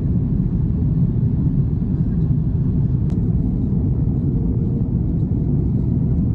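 Jet airliner cabin noise during descent: a steady low rumble of engines and airflow heard from inside the cabin, with one faint click about three seconds in.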